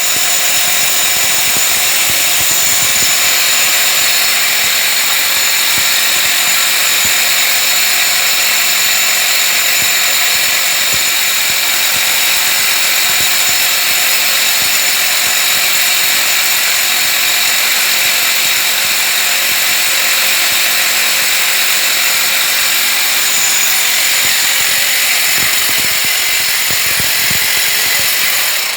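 Power drill running steadily under load, boring into a wall, with a constant high-pitched whine over a rushing noise.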